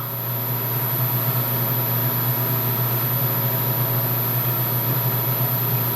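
Steady machine hum from a milling machine's running motor in a home shop, unchanging throughout.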